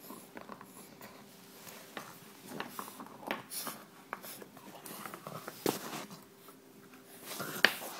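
French bulldog puppy snuffling and chewing at a toy up close, with irregular small clicks and rustles and a couple of sharper knocks in the second half.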